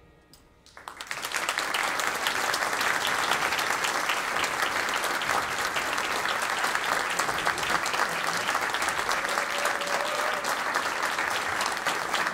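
Audience applauding: after a brief hush, clapping starts about a second in and then holds steady.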